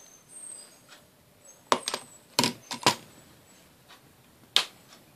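Razer BlackShark gaming headset being handled, its hard parts clicking and knocking: a quick group of sharp clicks a little under two seconds in, another group about half a second later, and one more click near the end.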